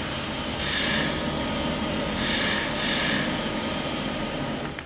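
Loud, steady industrial machine noise from workshop bench machines running, with a repeating swell in its higher hiss about every second and a half. It cuts off abruptly near the end.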